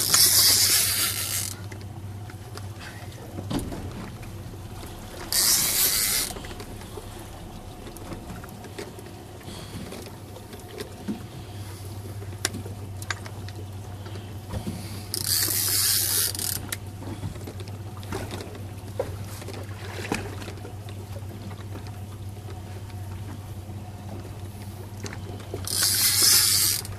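Penn 30 lb big-game reel whirring in four short, loud bursts spaced several seconds apart, as a bluefin tuna pulls line against the drag during the fight.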